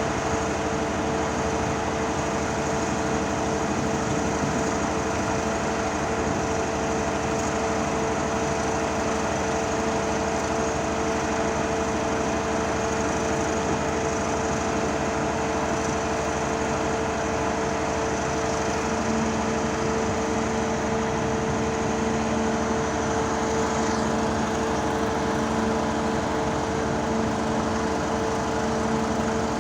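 Hydraulic static pile driver running steadily, its engine and hydraulic pump giving an even drone with a steady whine. A lower hum joins on and off in the second half.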